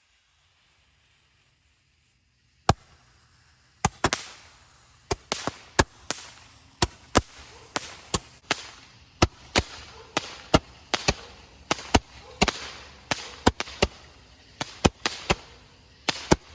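Fireworks going off: a near-silent start, one sharp crack, then from about four seconds in a long string of sharp pops and cracks, irregular, about two to three a second.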